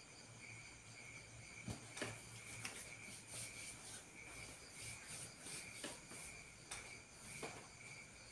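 Faint sound of hands rubbing and kneading bare skin during a leg massage, with a handful of soft strokes. Behind it, crickets chirp steadily in a pulsing trill.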